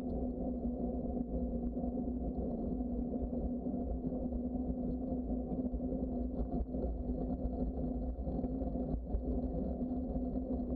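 Steady low rumble with a constant mid-pitched drone: the running noise of a bicycle ride, picked up by a bike-mounted camera.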